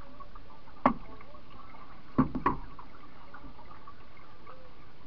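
Three knocks on the canoe's hull, one just under a second in and two close together a little after two seconds, over a steady hiss of moving water.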